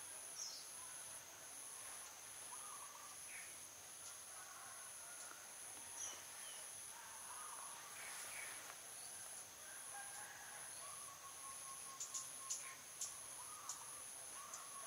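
Faint backyard ambience: insects keep up a steady, high pulsing drone, with scattered short bird chirps. A few sharp ticks come near the end.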